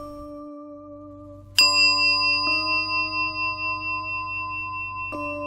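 A bell is struck: a tone rings on from a strike just before, then a loud strike about a second and a half in and two lighter strikes later, each left to ring out slowly.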